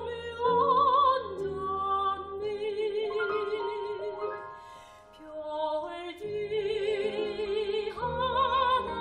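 Korean art song performed by soprano, violin and piano: a slow melody with vibrato over sustained piano notes. It thins to a soft moment about five seconds in, then swells again.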